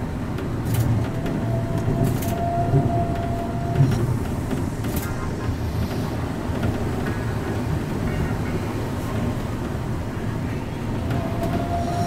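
Yokohama Seaside Line rubber-tyred automated guideway train running, heard from inside the car: a steady low rumble with a few short clicks. An electric motor whine holds one pitch from about one to four seconds in and starts to rise again near the end.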